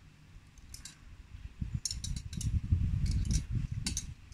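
Metal rods and wire parts of a folding fishing rod stand clicking and clinking as they are handled and fitted together. A low rumble sits under the clicks from about a second and a half in, and is the loudest sound there.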